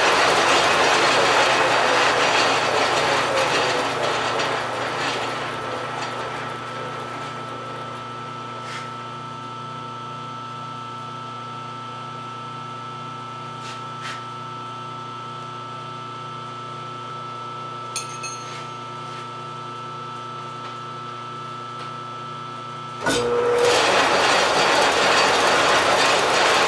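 Large American Tool Works engine lathe running with a cast-iron transmission housing spinning in it, then slowing and falling quiet over a few seconds, leaving a steady hum and a few light clicks and taps. About 23 seconds in the spindle starts again suddenly and runs loud as the cut on the bore's taper and chamfer resumes.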